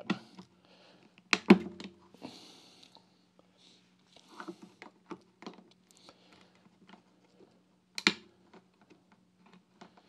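Victorinox Swiss Army knife can opener cutting around the rim of a tin can, rocked forward a bite at a time: irregular metal clicks and short scrapes, the sharpest about a second and a half in and again about eight seconds in.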